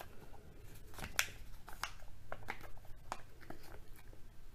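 Scattered small clicks and taps of a plastic Kinder Joy egg capsule being handled and worked open, with one sharper click about a second in.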